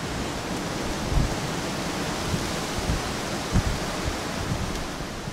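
Steady outdoor hiss of wind, with a few low thumps of gusts buffeting the microphone.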